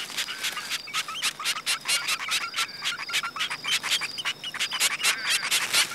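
Zebra finches at the nest: a rapid, uneven run of short high chirps, several a second, the begging calls of nestlings being fed by a parent.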